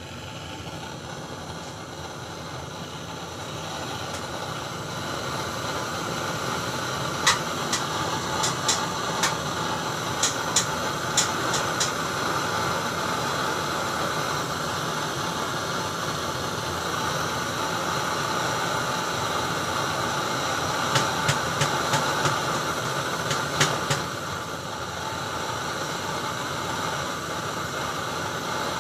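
A steady, loud hiss that builds up over the first few seconds, with a few sharp metallic clicks in two clusters, around a third of the way in and again near the two-thirds mark.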